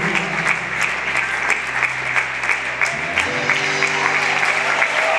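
Audience applauding over slow music with long held notes; the music moves to a new chord about three seconds in.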